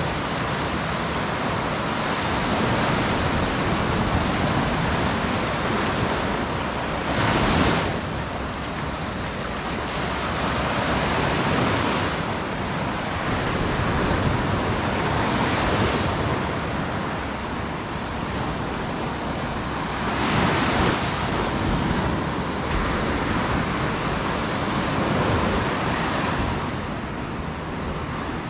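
Sea surf breaking and washing up on a beach, a continuous rushing that swells every few seconds as each wave comes in.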